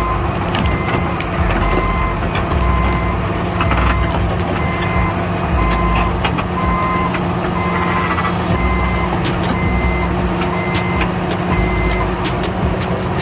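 Backup alarm on heavy construction equipment beeping roughly once a second, at two different pitches, over a diesel engine running steadily.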